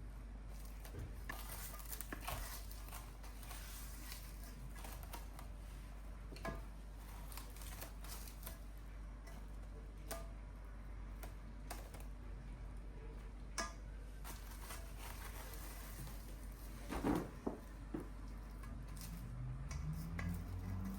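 Scattered light clicks and knocks of objects being handled in a small room over a steady low hum, with a louder clatter about 17 seconds in.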